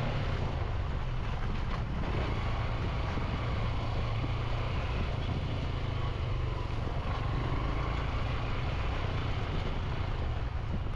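Motorcycle engine running steadily while being ridden, a continuous low rumble with an even layer of noise over it.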